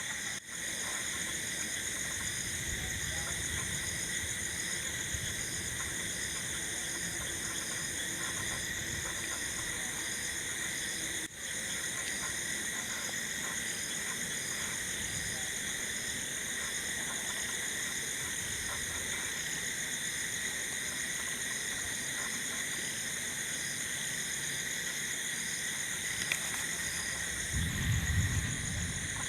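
Night-time insect chorus: steady high trilling at several pitches layered together. It briefly drops out near the start and again about 11 seconds in. A low rumble comes in near the end.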